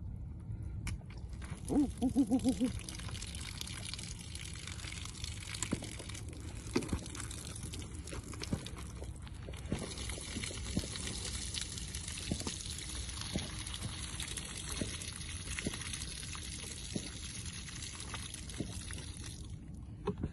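Water pouring and trickling out of plastic gallon jugs, a steady hiss, with a short run of glugs about two seconds in and light knocks of the plastic jugs being handled.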